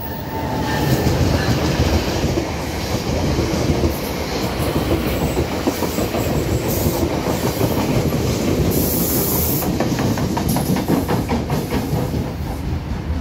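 NJ Transit electric-hauled passenger train passing close at speed, its wheels clicking over the rail joints in a steady run of clicks near the end, with a brief high hiss about nine seconds in.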